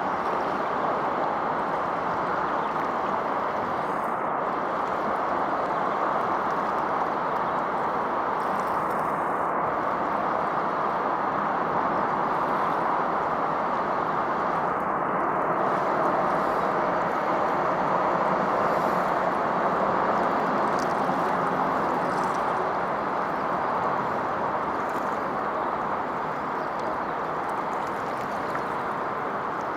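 Steady rushing outdoor noise that stays even throughout, with no distinct events standing out.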